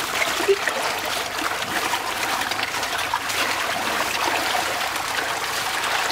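A crowd of fish feeding at a pond's surface, churning and splashing the water: a steady, dense patter of small splashes.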